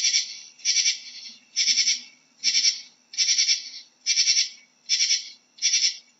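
Katydid calling, a dry, raspy, high-pitched rasp repeated a little more than once a second. Each call is a short train of several quick pulses.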